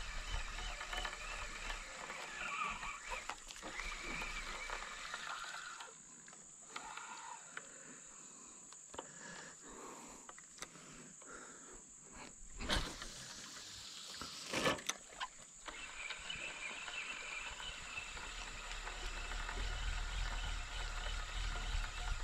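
Frogs calling in a chorus, dying down through the middle and picking up again, over a steady high-pitched whine. Two sharp knocks about two seconds apart near the middle are the loudest sounds.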